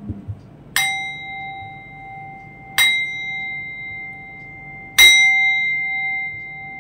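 Metal singing bowl struck three times with a wooden striker, about two seconds apart, each strike ringing on in a few steady bell-like tones that fade slowly; the third strike is the loudest, and the bowl is still ringing at the end.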